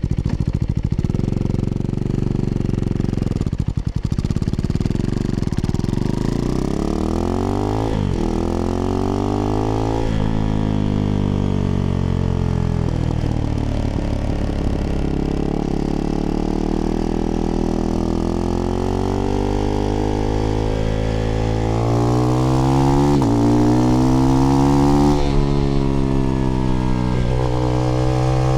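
Husqvarna Svartpilen 401's single-cylinder engine running through an aftermarket IxRace Mk.2 exhaust with a modified dB killer. The pitch climbs as it accelerates and drops sharply at each gear change, several times over, with a slower, lower stretch in between.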